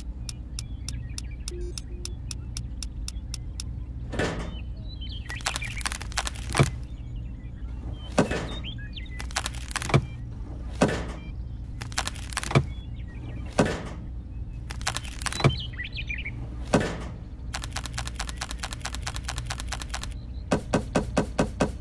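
A string of short, sharp pops, about one every second or so, as toy carrots are pushed one by one into holes in sand. Fast, even ticking runs near the start and again near the end, over a low steady hum.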